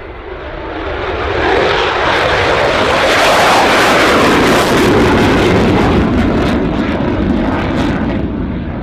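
F-16 fighter jet's engine passing low and fast, its noise building to a loud peak in the middle and then fading, with crackling in the second half as it climbs away in afterburner.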